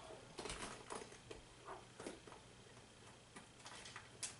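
Faint, irregular clicks and taps of plastic parts being handled: a hand pump's hose nozzle being fitted to the valve of an inflatable vinyl kayak.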